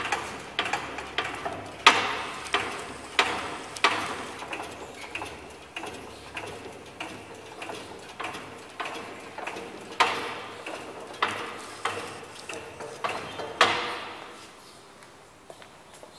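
Manual hydraulic drum stacker being pumped by its foot pedal to lift the load: its pump linkage and mast give a metallic clack on each stroke, roughly two a second. The strokes stop about 14 seconds in.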